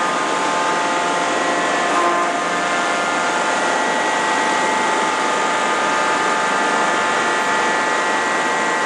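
Bank of electric motors driving the hydraulic pumps of a forging press's power unit, running together with a steady whine over a hiss.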